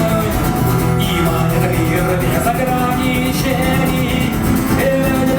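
Live band playing an instrumental passage of a rock song, with steady bass notes and guitar.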